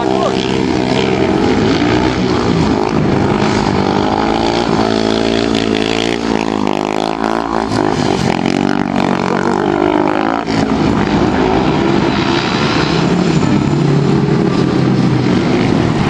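Speedway motorcycles' single-cylinder 500 cc methanol engines running hard, the pitch rising and falling as the throttle is worked through the bend.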